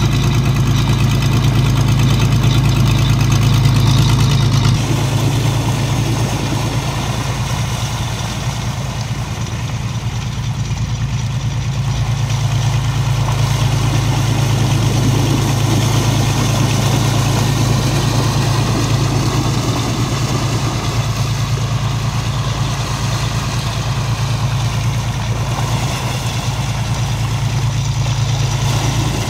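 An engine drones steadily at a constant speed: the suction dredge's pump engine driving mud slurry ashore through a hose. The sound drops slightly about five seconds in, then holds steady.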